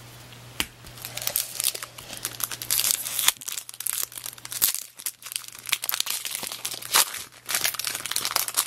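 A 2002 Bowman baseball card pack's wrapper being torn open and crinkled by hand, a dense run of sharp crackles and rips.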